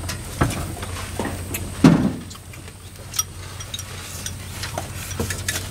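Bowls, spoons and chopsticks knocking and clinking during a meal, a few separate knocks with the loudest about two seconds in, over a steady low hum.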